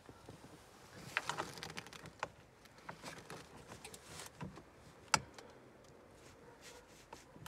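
Scattered metallic clicks and clinks of a hand wrench being fitted to the engine-cover bolts, with a quick cluster about a second in and one sharp loud click about five seconds in.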